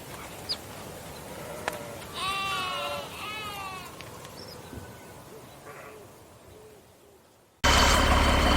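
Quiet outdoor ambience in which an animal calls twice, two drawn-out pitched calls about two seconds in. Near the end it cuts suddenly to a loud, steady diesel engine: the John Deere 4055 tractor running with its straight-piped exhaust.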